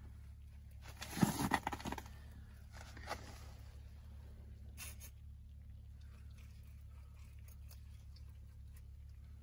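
Spinning reel's drag slipping in a short rasping burst about a second in, with a smaller burst soon after, as a hooked lake trout takes line on a run.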